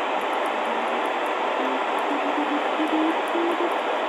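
Sangean ATS-909X2 shortwave receiver turned up loud in upper-sideband mode, its speaker giving a steady hiss of band static. From about halfway, a faint keyed Morse code tone beeps through the static, stepping up in pitch as the tuning knob is turned. The signal is barely being picked up.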